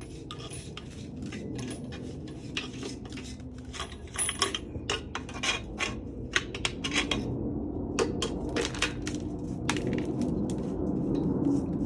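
Crushed ore and rock chips clinking and rattling against the metal of a small ore crusher as it is cleared of plugged material: many irregular sharp clicks. A low steady rumble builds up from about halfway through.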